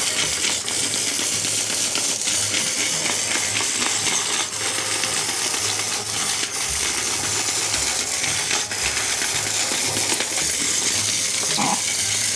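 Battery-powered walking caterpillar toy (GoGo Teku Teku Imomushi) running: a steady, dense mechanical clatter of its motor and plastic segments, with many small clicks.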